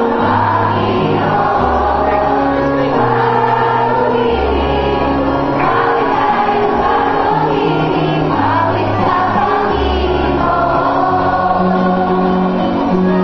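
Choral music: a choir singing in long sustained phrases over low bass notes, each held for about a second.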